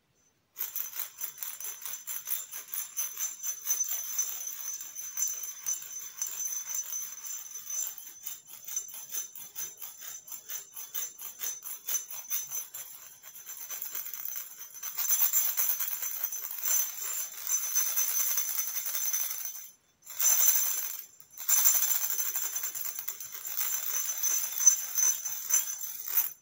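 Stoneware ceramic maraca being shaken, a bright rattle. It comes first as quick, evenly spaced shakes, then about halfway through as longer continuous shaking, broken by two short pauses.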